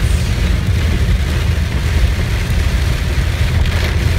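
Steady low rumble of a car's engine and tyres heard from inside the cabin, with heavy rain beating on the windshield and body.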